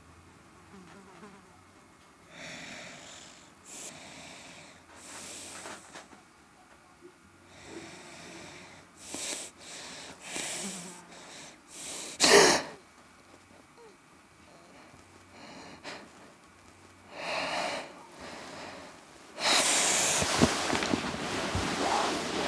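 A sleeping person's close breathing, in slow, irregular breaths, with a sharp louder breath about twelve seconds in and a longer, louder rush of noise near the end.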